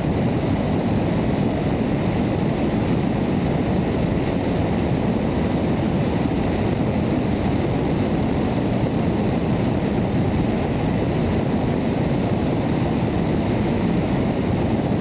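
Steady rushing drone of a Cessna 177RG Cardinal in flight on final approach: wind rushing over a camera mounted outside under the wing, mixed with the aircraft's four-cylinder engine and propeller.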